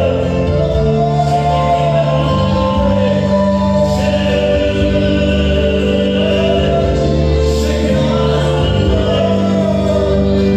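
Gospel worship music: voices singing together over long held chords, at a steady level.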